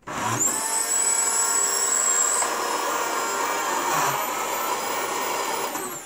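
Dyson DC37 canister vacuum cleaner switched on: its motor spins up to a high whine within half a second and runs steadily, then is switched off near the end, the whine falling. The motor has a rough noise in it, which the repairer takes for a faulty motor.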